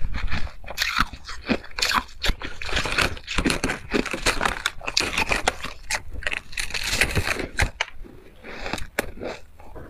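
Refrozen white ice crunching and crackling as it is chewed and crumbled apart by fingers, an irregular run of sharp crunches that eases off for about a second near the end.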